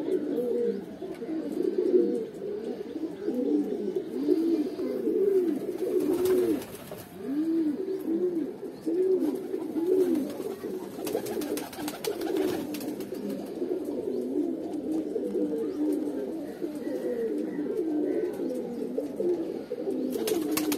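A loft of teddy pigeons cooing, several birds at once, their low rising-and-falling coos overlapping and repeating throughout. A few short clicks come about halfway through.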